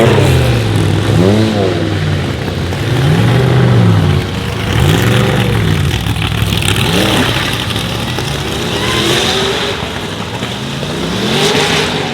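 Sauber Mercedes C9's turbocharged 5.0-litre V8 being revved, its pitch rising and falling about every two seconds.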